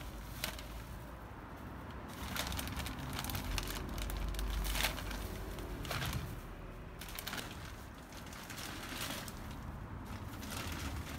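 Plastic sack of manure crinkling as handfuls are scooped out by hand, with scattered short scrapes and crackles of the dung and soil.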